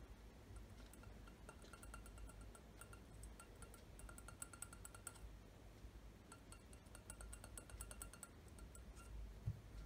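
Fingers tapping rapidly on a drinking glass holding a little water, each tap giving a faint ringing clink. Two runs of fast tapping, the second starting about six and a half seconds in.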